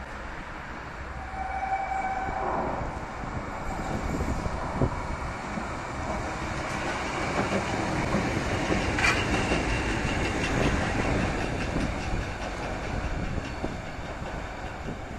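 Low-floor tram climbing out of a tunnel ramp and passing close by, its motors and wheels running on the rails. There is a short high tone about a second in, then a run of sharp clicks from the wheels in the middle, loudest about nine seconds in.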